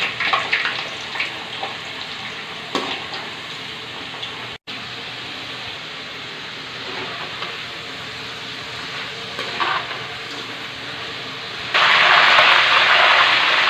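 Raw jackfruit strips deep-frying in hot oil in a metal kadai, a steady sizzle, stirred now and then with a metal slotted spatula. The sizzle jumps suddenly louder near the end.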